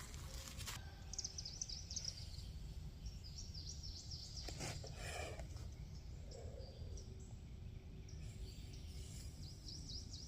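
Faint outdoor ambience: a low steady background noise with small birds chirping in short quick bursts several times.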